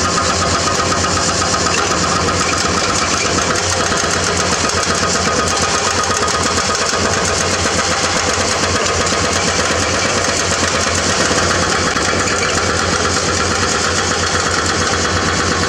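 Hydraulic excavator's diesel engine running steadily, without a break or change in pace.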